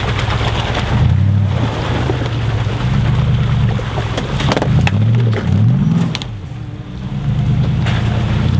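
Nissan Y62 Patrol's V8 engine pulling the vehicle through muddy ruts, its revs rising and falling a few times about five to six seconds in before easing off briefly.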